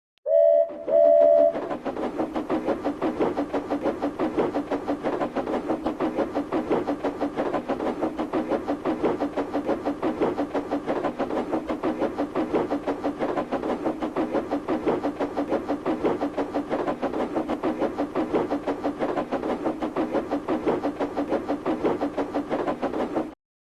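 Steam locomotive whistle giving two short toots, then the engine chuffing steadily at about five beats a second over a running rumble. The chuffing cuts off abruptly near the end.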